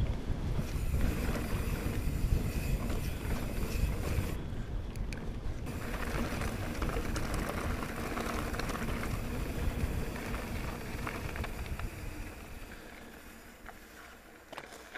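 Wind buffeting an action camera's microphone over the rolling rumble of mountain bike tyres, first on grass and then on a gravel track with light ticking of stones. The noise dies down over the last few seconds.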